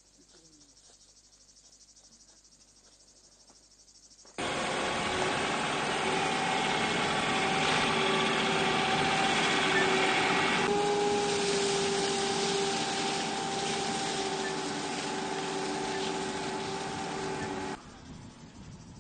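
A fire truck's engine and pump running steadily, a held drone over a broad hiss, starting abruptly about four seconds in and cutting off shortly before the end. Before it, only faint high insect buzzing.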